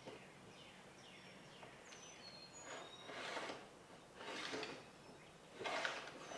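Wooden stop block sliding back and forth along the T-track on the miter saw fence, a few soft scraping swells, with short faint high squeaks or chirps between them.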